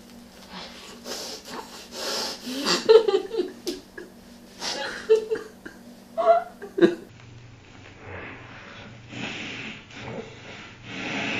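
A woman's wordless voice sounds, laughter and breathy noises, in short bursts as she eats toast.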